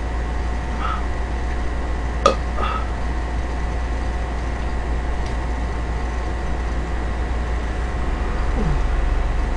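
Steady low hum with an even hiss behind it, broken by a single sharp click about two seconds in and a few faint soft sounds of noodles being eaten with chopsticks; a short falling sound comes near the end.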